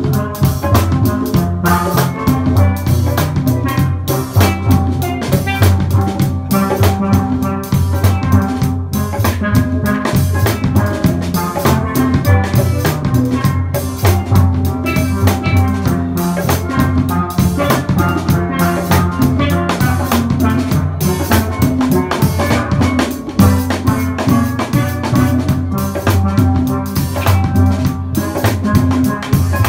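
Music with a steady drum beat under a pitched melody line.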